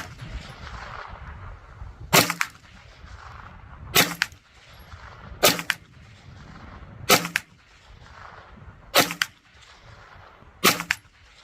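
Smith & Wesson FPC 9mm pistol-calibre carbine firing six single, aimed shots, spaced about one and a half to two seconds apart.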